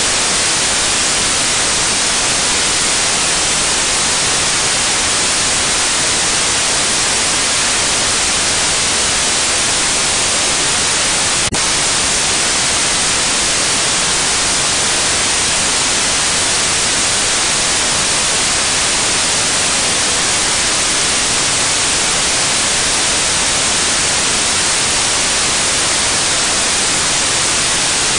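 Loud, steady static hiss, even and unchanging, with no engine or working noise in it; a single faint click about eleven seconds in.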